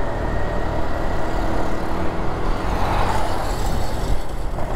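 Riding a motorcycle: a steady rumble of wind and engine, with a louder rushing swell about three seconds in.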